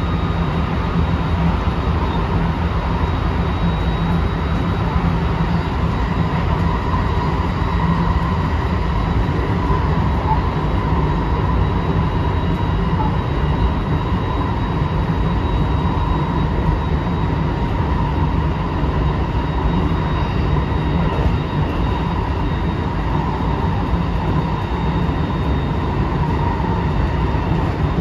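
Interior running noise of a JR West 223 series 2000 electric train at speed, heard inside an intermediate motor car fitted with a Hitachi IGBT inverter: a steady rumble of wheels on rail with a constant faint whine.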